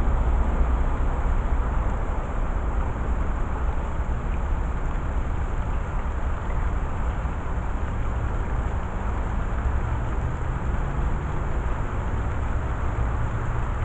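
Steady outdoor background rumble: a constant low rumble and even hiss with a faint low hum.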